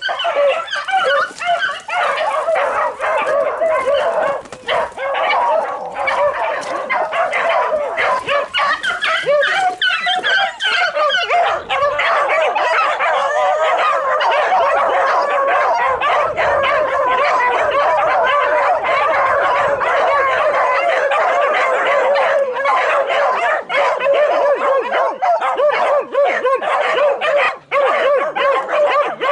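A pack of beagle bitches baying together without a break, many voices overlapping, as they hold a wild boar at bay.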